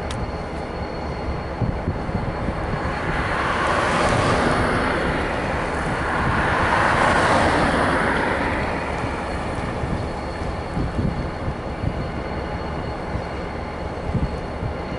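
Diesel locomotive and freight cars moving on the track with a steady low rumble. A rush of noise swells from about three seconds in and fades again after about nine seconds.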